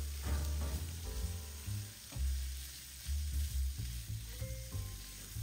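Diced bacon sizzling as it fries in a nonstick frying pan, stirred with a spatula.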